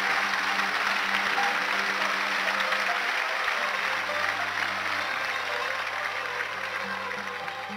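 Concert audience applauding after a sung line, the clapping dying away over the last couple of seconds, with held instrument notes faintly underneath.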